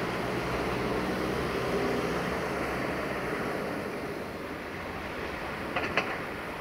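Steady outdoor background noise with a faint low hum that fades after about four seconds, and two sharp clicks about six seconds in.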